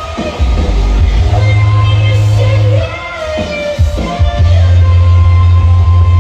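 Loud dubstep music from a DJ set: heavy sustained sub-bass notes with brief breaks near the start and about three seconds in, under a sung vocal melody.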